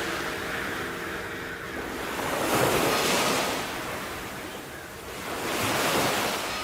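Sea waves washing onto the shore, the surf swelling twice, about two and a half seconds in and again near the end.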